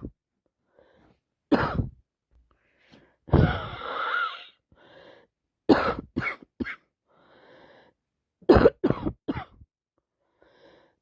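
Coughing from a person with a bad cold. A single cough comes first, then a longer burst, then a quick run of three coughs and later a run of four.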